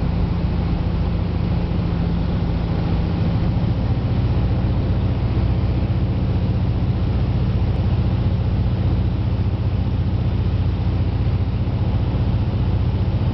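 Cabin noise of a Cessna 177RG Cardinal in flight on final approach: the four-cylinder Lycoming IO-360 engine and propeller running steadily, its note shifting lower about four seconds in.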